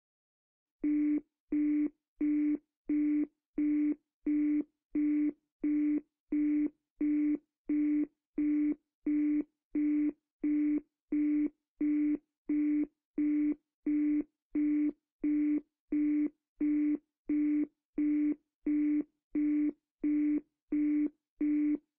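Telephone busy signal: identical short beeps, about three every two seconds, starting about a second in and repeating at an even pace. It is the sign that the call cannot go through.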